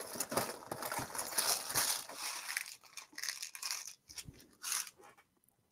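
Rummaging through a container of small tools and hardware: irregular rustling and crinkling with small clicks as plastic packages and small plastic boxes of hardware are moved about.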